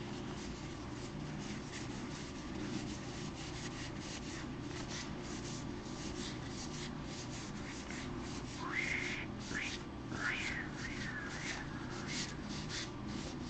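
A stack of baseball cards being thumbed through by hand, card edges sliding and flicking past each other in a run of soft quick ticks. A few faint high chirping glides come about two thirds of the way through.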